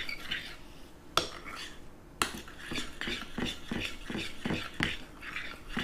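A spoon stirring thickening slime in a container, knocking and scraping against its sides: two sharp knocks, then a steady run of about three strokes a second.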